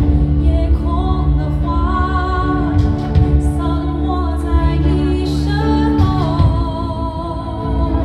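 A female vocalist sings live with a small band of drum kit, electric guitar and upright double bass, in two long phrases over a steady bass line.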